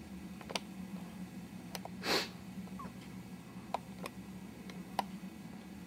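Quiet room tone with a steady low hum, a few faint scattered clicks, and one short breathy hiss about two seconds in.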